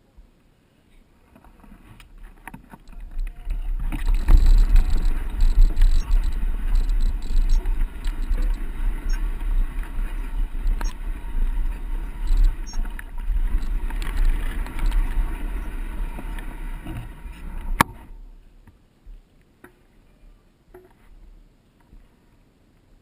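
Mountain bike riding fast down a dirt trail: heavy wind rumble on the microphone with rattling and clicking from the bike, building over the first few seconds and cutting off sharply about eighteen seconds in.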